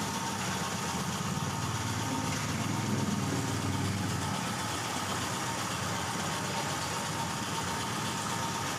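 Steady running noise of an engine or motor idling, with a low hum that swells slightly a few seconds in.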